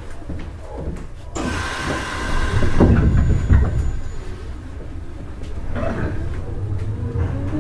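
Inside a Nishitetsu 5000 series electric train: a sharp air hiss, then thuds as the pneumatic sliding doors close. Near the end a low hum with faint rising tones begins as the train starts to move off.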